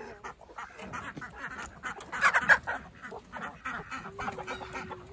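Chickens calling, loudest for about half a second a little over two seconds in.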